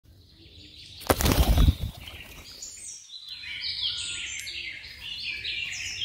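Pigeons' wings flapping in a loud burst about a second in, followed by birds chirping in many short, overlapping high notes.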